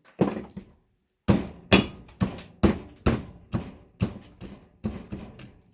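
A series of about a dozen hard knocks, roughly two a second, as a scrap circuit board is struck to break off its components.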